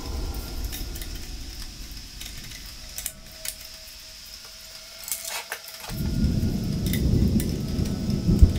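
Scroll-sawn wooden spotlight filter being handled and fitted onto a spotlight: a few light clicks and rattles, then a low rumbling noise from about six seconds in.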